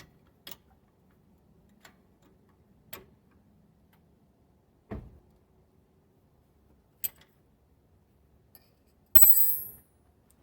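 Sparse light metallic clicks of a wrench working a brake bleeder screw loose, a few seconds apart. Near the end comes one loud, ringing metal clink.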